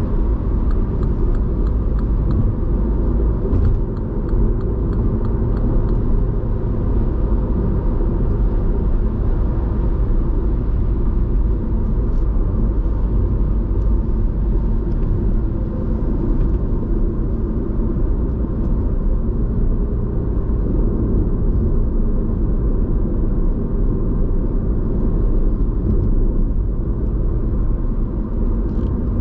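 2015 MINI One 1.2 petrol's three-cylinder engine running steadily under way, with road and tyre rumble, on a motorway exit.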